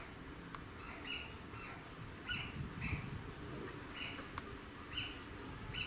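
Asian small-clawed otters chirping: short, high-pitched peeping calls repeated roughly every second.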